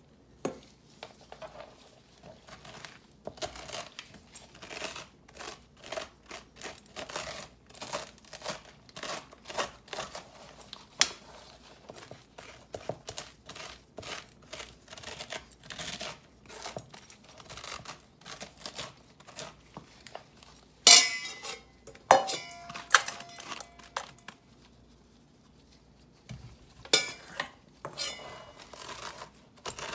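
A slotted metal spoon scraping seeds and stringy pulp out of a raw halved spaghetti squash, in repeated short strokes. About two-thirds of the way through, the spoon clanks sharply a few times against a stainless steel bowl, which rings briefly. A few more knocks come near the end.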